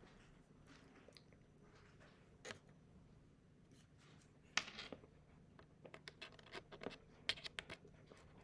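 Faint scratches and light ticks of a thin paintbrush working on paper, a few scattered at first and coming more often near the end.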